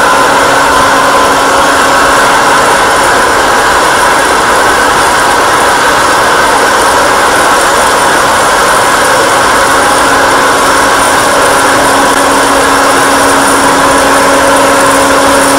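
Electric motor of an oil-free hot-air fryer running steadily: a loud, even whir with a constant hum.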